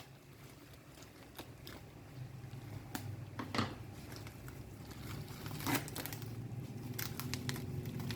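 Handling noises: scattered small clicks and crackles over a low hum that grows steadily louder.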